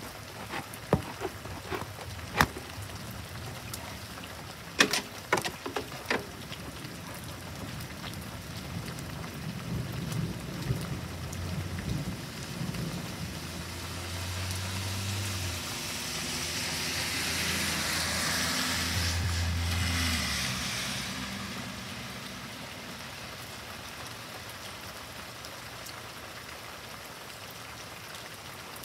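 Heavy thunderstorm rain falling steadily, with a few sharp drip taps in the first six seconds and a low rumble of thunder around ten seconds in. A vehicle's tyres hiss on the wet road as it passes, swelling to the loudest point around eighteen to twenty seconds and fading away.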